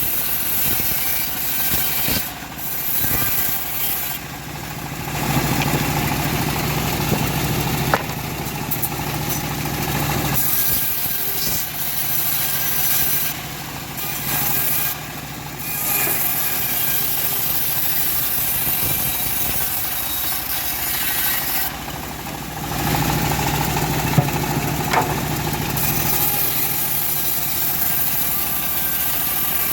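Engine-driven homemade bandsaw running and sawing a semi-dry teak log: a steady engine hum under the rasp of the blade. It grows louder twice, about five seconds in and again about twenty-three seconds in.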